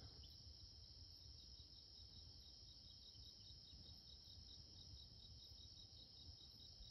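Faint chorus of night insects such as crickets: a steady high trill with a separate chirp repeating evenly several times a second.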